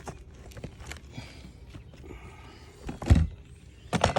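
Knocks on wooden roof shakes: a few light taps, one heavy dull thump about three seconds in, then two sharp knocks near the end.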